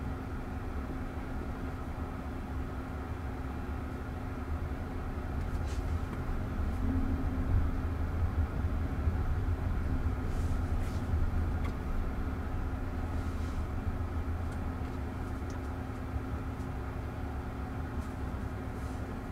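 Cabin noise of an electric Jaguar I-Pace robotaxi driving along: a steady low road and tyre rumble with a faint hum, growing somewhat louder for a few seconds near the middle.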